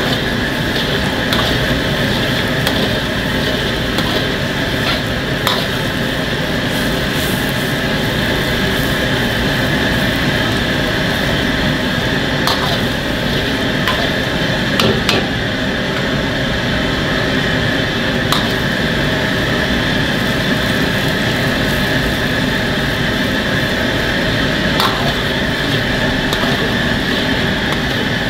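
Food stir-frying in a wok over a high gas flame: a steady roar of burner and sizzling, with a metal ladle knocking and scraping against the wok a few times.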